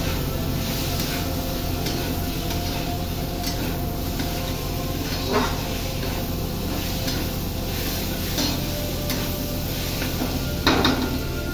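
Metal spatula stirring and scraping chickpeas around a metal kadai, with a light sizzle of the frying spices; a few sharper scrapes of the spatula against the pan, the loudest near the end.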